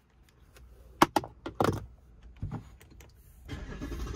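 A key fob and cabin controls being handled inside a car: several sharp clicks and knocks, with a hum rising near the end.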